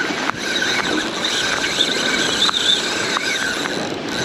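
Spinning fishing reel whining steadily at a high pitch as line runs through it.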